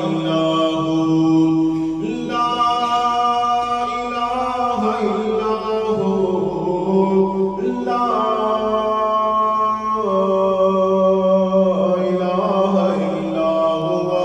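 A man's voice reciting the Quran in the melodic chanted style of tajweed, holding long notes that step to a new pitch every two seconds or so.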